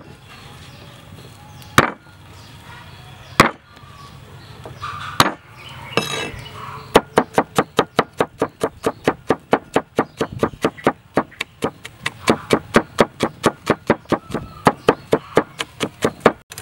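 A steel cleaver chopping garlic on a wooden board. There are a few single, well-spaced blows, then about seven seconds in a fast, even run of chops at about four strokes a second as the cloves are minced.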